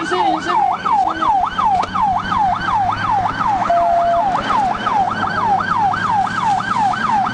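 Police car siren in rapid yelp mode, its pitch sweeping up and down about three to four times a second without a break, with a short steady beep about four seconds in.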